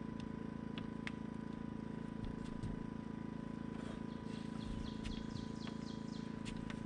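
Outdoor woodland ambience over a steady low hum, with a songbird singing a quick run of repeated descending chirps in the second half. A couple of faint clicks come in the first half.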